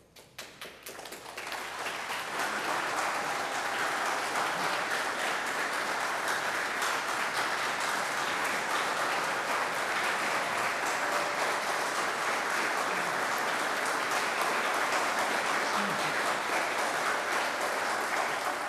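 A congregation applauding: a few separate claps at first, swelling within about two seconds into long, steady applause that dies away at the end.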